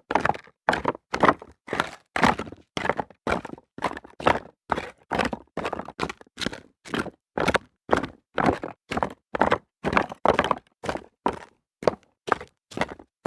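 Footsteps of a person running on rocks: an even stream of crunching steps, about three a second.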